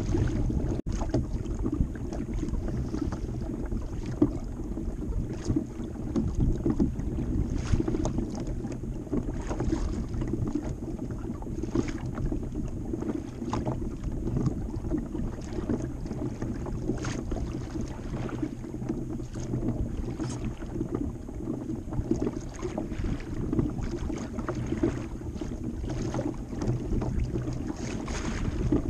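Water splashing and lapping against the hull of a moving fishing kayak in choppy water, with wind rumbling on the microphone. The sound is a steady wash with many short splashes.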